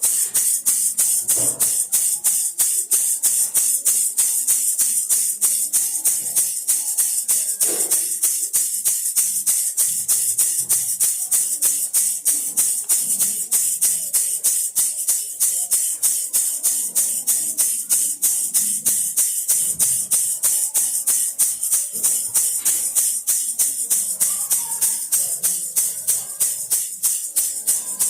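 Baby rattle shaken steadily in an even rhythm of about four shakes a second, a bright rattling of small beads inside.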